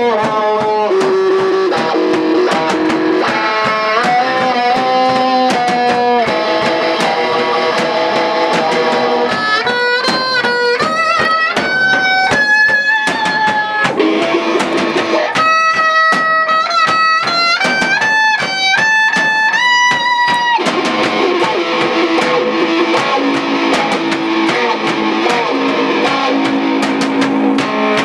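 Live amplified band music: electric guitar and lap steel guitar playing sustained, sliding notes over a drum kit. In the middle stretch the lead line climbs into high held notes that step and glide between pitches.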